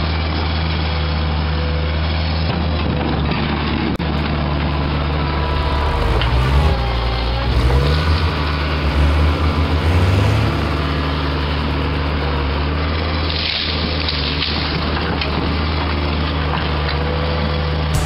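Skid steer loader's engine running steadily, revving up and down between about 6 and 10 seconds in as the machine drives and works its bucket of snow.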